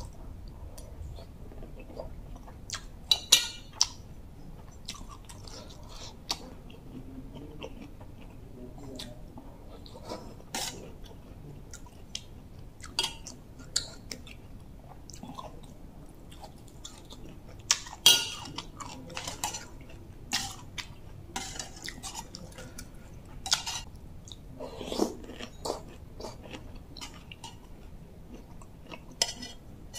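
Close-up chewing and mouth sounds of someone eating bamboo-shoot soup with sticky rice, with scattered sharp clicks and taps from the metal spoon and bowl.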